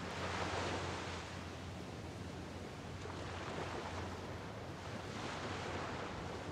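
Waves washing onto the shore, one surge about half a second in and another around five seconds in, over a steady low rumble.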